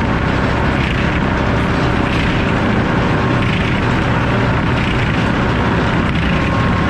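Circular sawmill with an F-pattern saw blade running, a loud, steady machine noise that holds an even level throughout.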